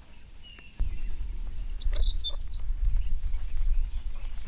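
Small birds chirping and giving short whistles, with a low rumbling noise that comes in suddenly about a second in and is the loudest thing heard.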